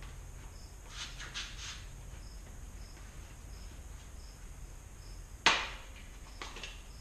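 Handling noises from unboxing a bicycle: a few light clicks about a second in, then one sharp knock about five and a half seconds in, followed by a couple of softer clicks. A faint high chirp repeats steadily underneath.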